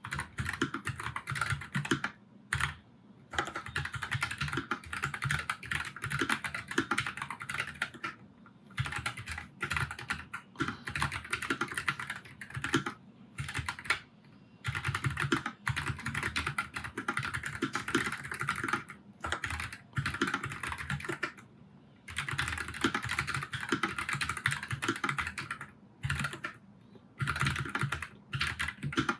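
Steady, fast typing on a Nuphy Air96 low-profile mechanical keyboard with brown tactile switches: a dense stream of key clacks, broken by brief pauses every few seconds.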